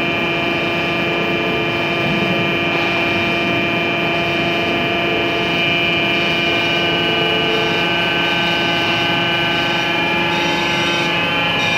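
Hydraulic power unit of a cylinder test bench running steadily while it drives a telescopic hydraulic cylinder under test: a constant machine whine of several steady pitches over a low hum.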